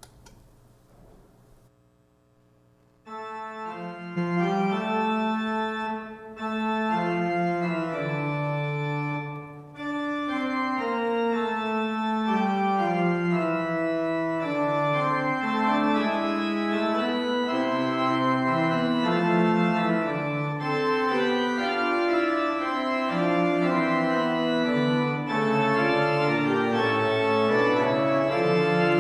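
Church organ, silent at first, begins playing a slow piece in held chords about three seconds in. It is the postlude closing the worship service.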